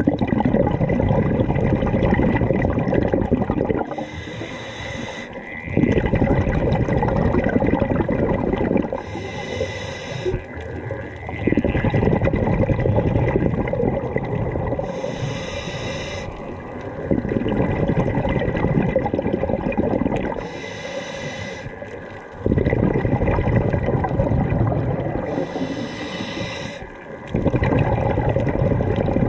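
A scuba diver's regulator breathing, heard underwater. Short hissing inhalations alternate with longer bubbling exhalations, about five breath cycles.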